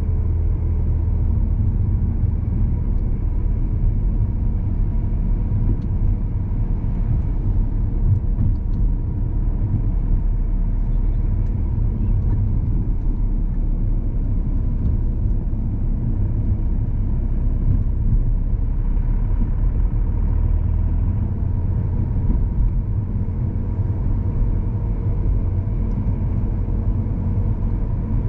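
Car engine and road noise heard from inside the cabin while driving: a steady low rumble that does not change in level.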